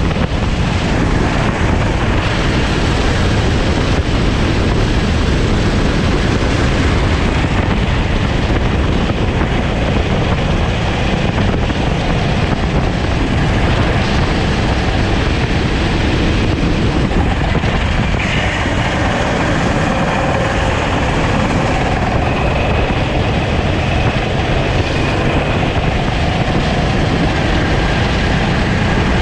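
A Sodi rental kart racing on track, heard onboard: the small kart engine runs hard under a dense, steady rush of wind and road noise, with its note shifting in pitch.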